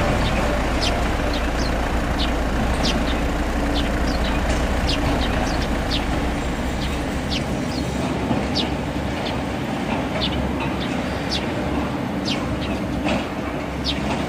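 A steady low rumble with many short, high bird chirps over it, about one or two a second.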